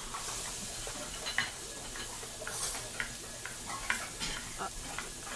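Kitchen work at a counter: scattered light clinks and knocks of utensils and pots over a steady hiss.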